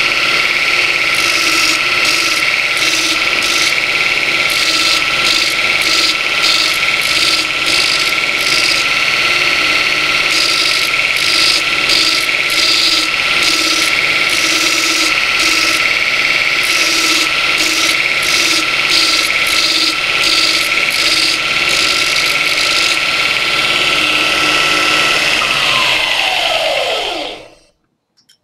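Burr King 960-272 belt grinder running with a steel blade being ground on the belt: a steady motor and belt whine, with a harsher grinding hiss that comes and goes as the blade meets the belt. Near the end the motor is switched off and its whine falls as the grinder winds down to a stop.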